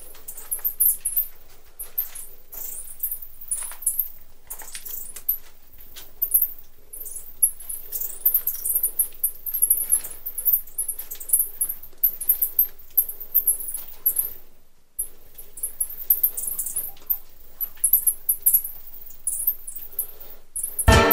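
A colony of bats squeaking inside a cave: a dense, unbroken chatter of short, high-pitched squeaks and chirps with small clicks among them. Music comes in right at the end.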